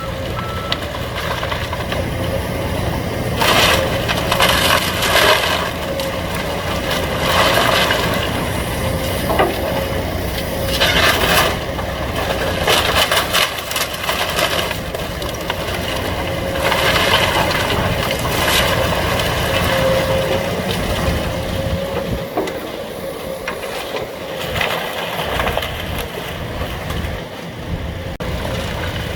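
Diesel excavator engines running steadily while the wood framing of a house is torn down, with repeated irregular cracking, breaking and crushing of timber and debris.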